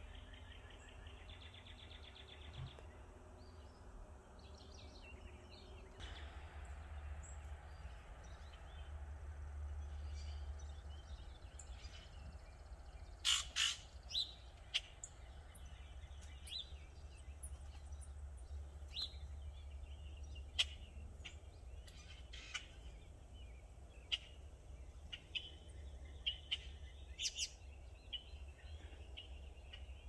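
Wild birds calling and chirping: scattered short, sharp calls, the loudest a pair about thirteen seconds in, over a low steady rumble.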